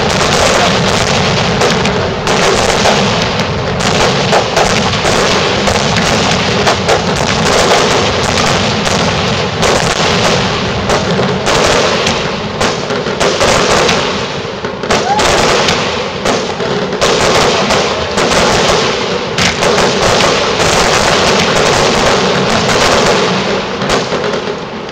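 Aerial fireworks display: a dense, unbroken barrage of shell bursts and bangs, many overlapping one another, loud throughout.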